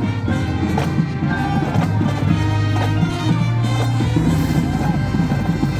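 High school marching band playing brass over low held notes, with percussion.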